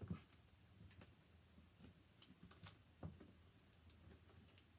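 Faint, irregular snips, clicks and scrapes of scissors cutting the packing tape on a cardboard box.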